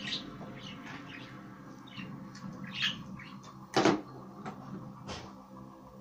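Budgerigar on a small tabletop game: light taps and clicks with a few brief high chirps, then two sharp knocks about four and five seconds in, the first the loudest.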